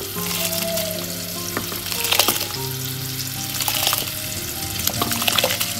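Spiced water at a rolling boil in a steel pot, bubbling and hissing. Washed rice is dropped in by hand, with a few brief splashes and knocks around two seconds in and again near the end.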